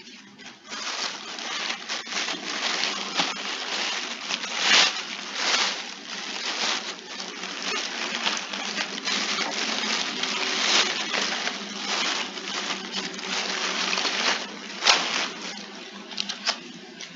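Continuous crinkling and rustling from something being handled, with louder cracks about five seconds and fifteen seconds in.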